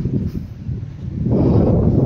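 Wind buffeting the phone's microphone: a loud, gusty low rumble that eases off and then swells again a little over a second in.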